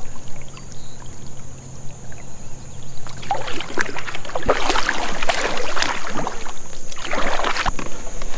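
Kayak paddle strokes splashing and dripping in the water, in a couple of uneven bunches in the second half.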